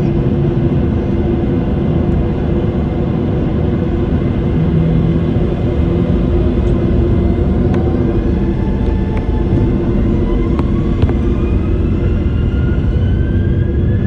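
Jet airliner engines heard from inside the cabin: a steady rumble with a constant hum. From about halfway, a whine rises slowly in pitch as the engines spool up for takeoff.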